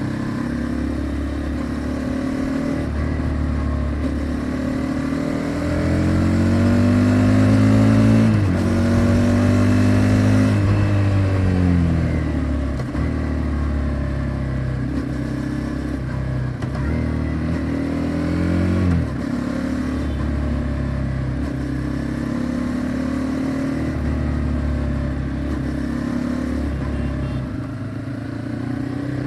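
Honda CBR250R's single-cylinder engine running through its exhaust, mostly at a steady pitch. The pitch climbs and falls back about a third of the way in, and again briefly about two-thirds through.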